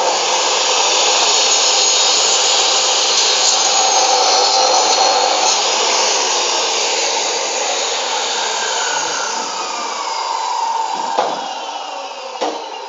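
Maktec 2000 W saw motor driving a 7-inch, 100-tooth aluminium-cutting blade, running loud and steady as it cuts through beef bone and meat. Around ten seconds in it spins down with a falling whine and the noise fades.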